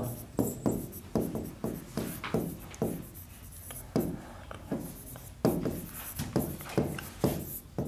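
Marker writing on a board: a run of short scratching strokes, about three a second, with a brief lull around three seconds in.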